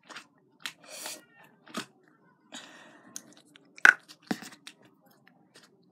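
Neon yellow store-bought slime being squeezed and poked by hand, making irregular sticky clicks and crackly pops, the loudest a little under four seconds in.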